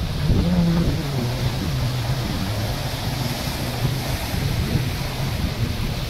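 Sea waves washing and breaking around rocks in a steady rush, with wind rumbling on the microphone.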